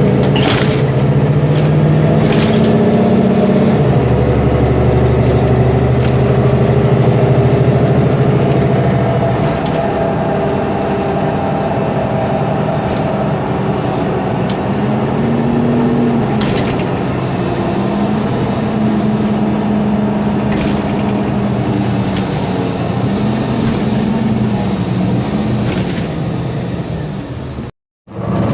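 Mercedes-Benz Conecto G bus's OM457LA turbo diesel engine, a Euro 5 inline six, running under way, its pitch rising and falling a few times, with occasional knocks and rattles. The sound cuts out for a moment near the end.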